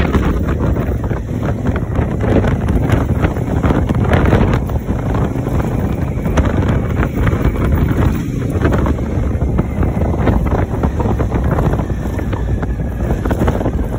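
Heavy wind buffeting on the microphone of a moving motorcycle, with the Honda Africa Twin's parallel-twin engine running underneath at a steady pace.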